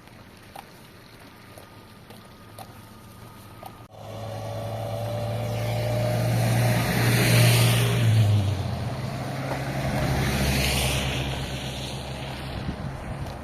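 An engine running with a steady low hum that starts abruptly about four seconds in and drops in pitch about halfway through, mixed with two swells of rushing wind noise.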